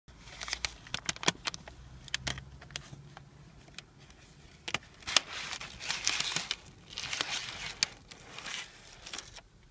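Paper food bag crinkling and rustling as it is handled and opened. Sharp crackles come in the first couple of seconds, then longer rustles later as the chicken skewer is drawn out.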